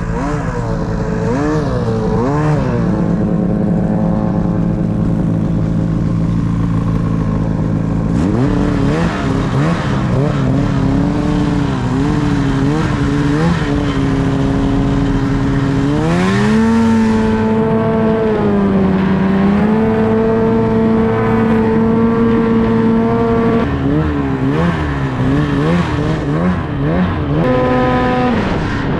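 Ski-Doo snowmobile engine running under changing throttle, its pitch rising and falling in short blips. A bit past halfway it climbs sharply and holds high for several seconds, then blips again and drops off near the end.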